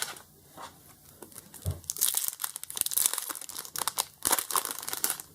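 Foil Pokémon TCG booster pack being torn open and its wrapper crinkled, a dense crackling that builds up about two seconds in.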